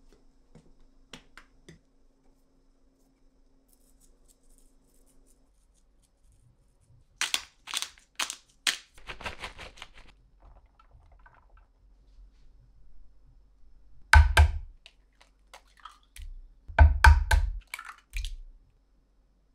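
Scattered clicks and knocks of objects being handled, with a short scraping noise about halfway through and two loud thuds in the last third.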